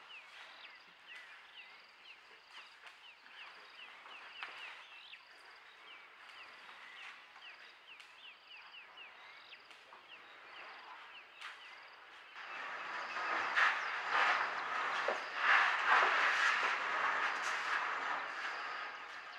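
Outdoor dawn chorus of birds and insects: a short falling chirp repeats several times a second over a pulsing high insect trill. About twelve seconds in, louder rustling and scuffing noise with scattered knocks takes over.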